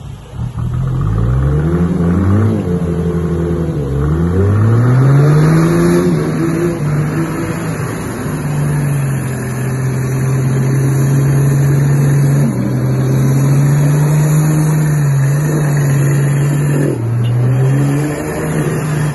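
Off-road 4x4 engine revving hard under load as a stuck Toyota Land Cruiser is winched up out of a ditch. The revs rise and fall several times over the first few seconds, then are held high and fairly steady, with brief dips near the end.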